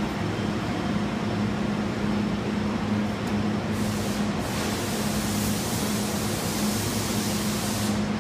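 Steady low mechanical hum with a constant hiss, like ventilation running. The hiss grows brighter about four seconds in, as a large cardboard lid is lifted and lowered onto the box.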